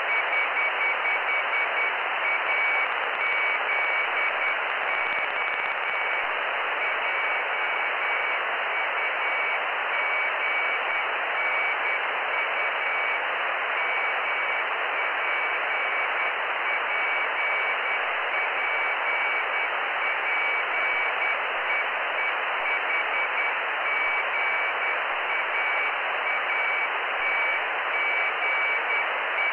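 Morse code (CW) telemetry beacon from the Jugnu cubesat received by radio: a high tone keyed on and off in dots and dashes over steady receiver hiss.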